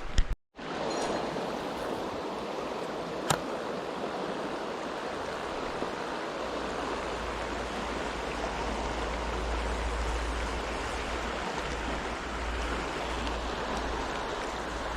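Mountain stream water rushing steadily, with a single sharp click about three seconds in. A low rumble joins about halfway through.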